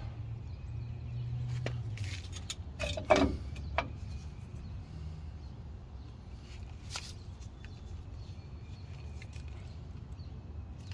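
A few short metallic clicks and clinks as a drum brake shoe and its hardware are handled against the backing plate, the loudest about three seconds in and one more near seven seconds, over a steady low rumble.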